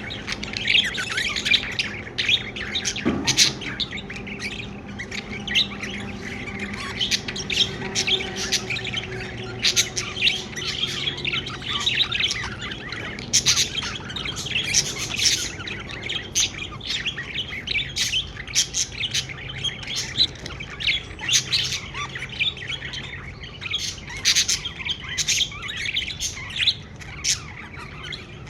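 Pet budgerigars chirping and chattering continuously, a dense stream of short warbling chirps with frequent sharper squawk-like calls.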